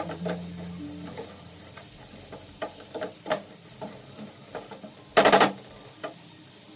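Wooden spatula stirring diced vegetables in a non-stick frying pan, with scattered scrapes and taps over a light sizzle. A little after five seconds in comes a loud, quick clatter of about four knocks.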